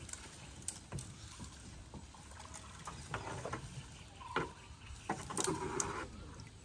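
Light water splashes and drips from hands and a fishing net being worked in river water among leafy branches beside a canoe, with scattered small clicks and knocks.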